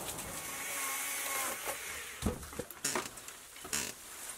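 Corrugated metal roofing being pulled and knocked loose during demolition: a few sharp knocks and clatters in the second half, over a steady outdoor background hiss.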